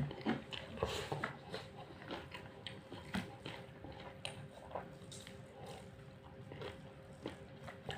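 Close-up chewing of a mouthful of chicken biryani, with soft scattered mouth clicks and smacks.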